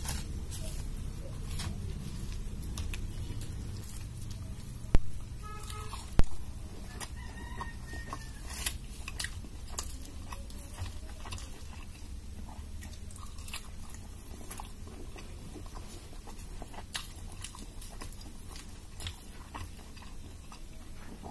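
Close-up eating sounds: puri being torn by hand and dipped in dal, with chewing and wet mouth clicks. Two sharp knocks, about five and six seconds in, are the loudest sounds.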